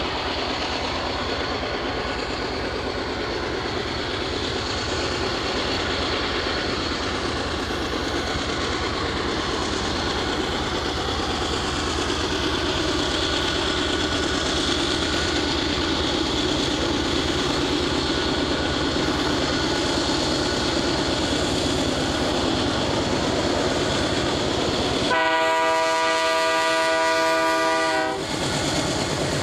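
BNSF diesel freight locomotives running with a steady engine drone and rail noise as the train approaches. About 25 seconds in, a locomotive air horn sounds one long blast of about three seconds, the loudest sound.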